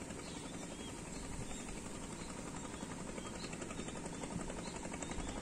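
Small boat engine running steadily with a rapid, even chugging, getting slightly louder near the end.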